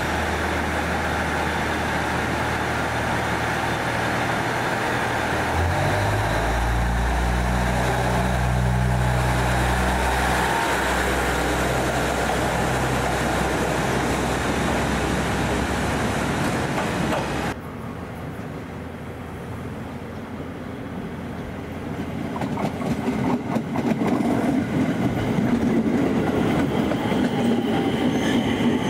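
Electric commuter train running: a steady low hum that steps up and grows louder about six seconds in. The sound cuts off sharply two-thirds of the way through, then a wheel rattle with rapid clicking builds up toward the end.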